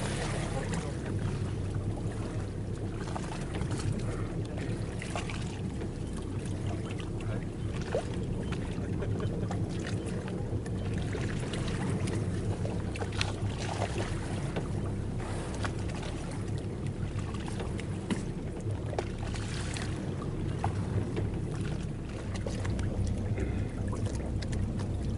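Boat engine idling with a steady low hum, with short splashy noises of water and wind scattered over it.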